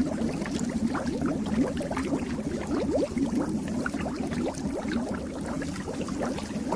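Steady underwater bubbling sound effect: a dense stream of small bubbles, each a short rising blip.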